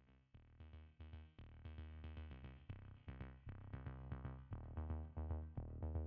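Electronic background music with a steady beat and heavy bass, getting louder over the first seconds.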